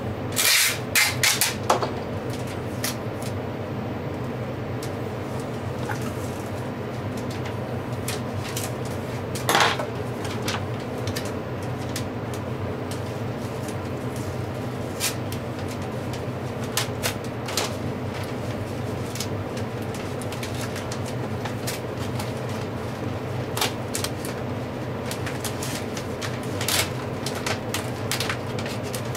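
Handling noises from an iPad being taken apart: clicks, taps and clacks of fingers on its metal frame, LCD panel and connectors, with a cluster of louder clacks near the start and another about ten seconds in. A steady low hum runs underneath.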